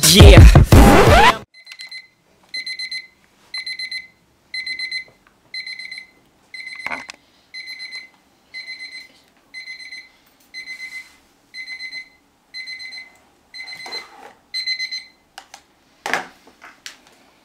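Alarm clock going off: a short burst of rapid high-pitched beeps repeating about once a second, stopping about two seconds before the end, followed by a brief knock.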